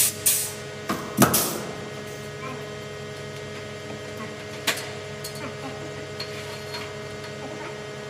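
A few sharp knocks with short ringing on the metal-faced insulated cold-room panels in the first second and a half, and one more about four and a half seconds in, over a steady electrical hum.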